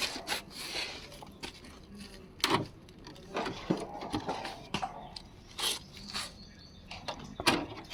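Scattered, irregular clicks and knocks, about a dozen in all, from tools and parts being handled during work on a window air conditioner.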